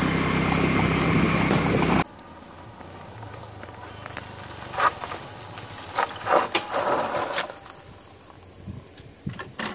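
Loud music over vehicle noise cuts off abruptly about two seconds in. A motorcycle engine then comes up a dirt track, running unevenly in bursts and dying away near the end as the bike runs out of petrol.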